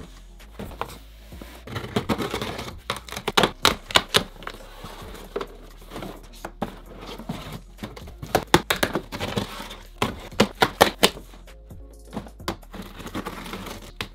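Cardboard shipping boxes and shoeboxes being handled and opened by hand: irregular taps, knocks and scrapes, with background music underneath.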